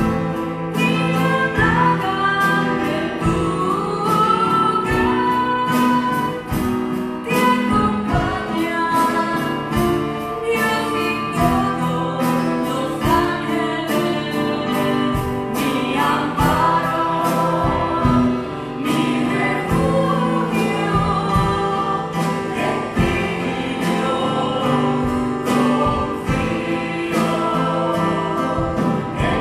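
Two women singing a liturgical song in Spanish into microphones, accompanied by a steadily strummed guitar.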